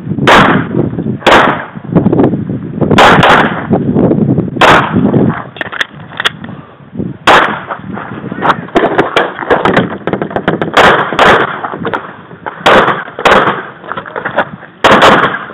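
Semi-automatic pistol fired close to the microphone: about a dozen very loud, sharp shots, some in quick pairs, with pauses of a second or more between strings.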